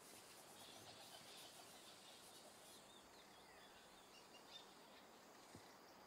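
Near silence: faint outdoor ambience with a few faint bird chirps.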